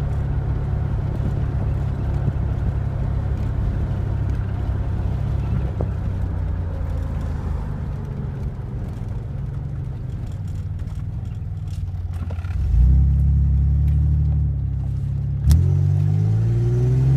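Chevy S10 Blazer's 4.3-litre V6 engine heard from inside the cab while driving, a steady low hum. About three-quarters of the way through it gets louder, and after a thump near the end the engine note rises as the truck accelerates.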